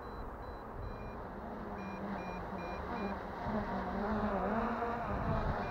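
Hum of a descending MJX Bugs 3 Pro quadcopter's propellers, wavering and growing louder after about three and a half seconds, over wind noise on the microphone. A run of short high-pitched beeps, the low-battery warning, sounds in the first three seconds.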